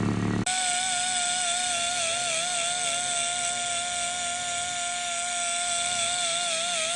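The car's engine idles for about half a second, then cuts abruptly to background music: sustained notes that waver slightly in pitch.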